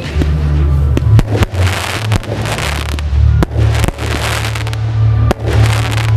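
Aerial firework shells bursting with sharp bangs and crackling, over loud music with a heavy bass line.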